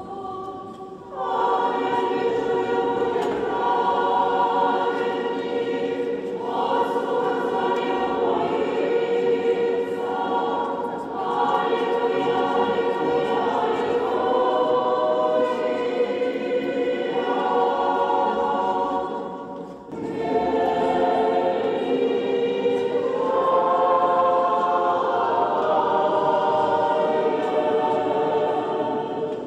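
Orthodox church choir singing liturgical chant unaccompanied, in sustained chords of several voices. The phrases are separated by brief pauses.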